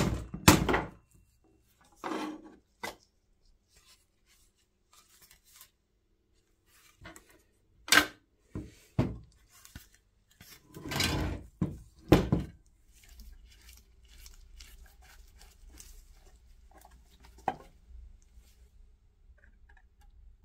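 Knocks, clinks and scrapes of the rusty steel case and parts of an antique clockwork spit jack being handled and taken apart by hand, in scattered bursts. The loudest clusters come about eight seconds in and again around eleven to twelve seconds, with a single sharp click near the end.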